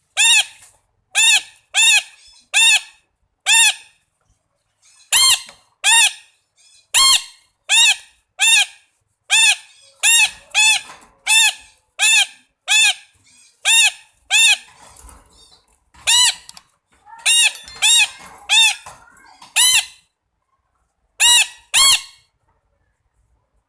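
Red-breasted parakeet calling: a long series of short, loud, ringing notes, each rising and falling quickly in pitch, repeated roughly one to two a second in bouts with short pauses, some fainter calls between the louder ones.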